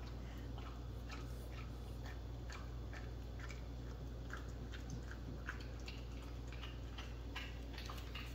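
French bulldog chewing and smacking a large slice of ham: a quick run of soft, irregular clicks, a few a second, over a steady low hum.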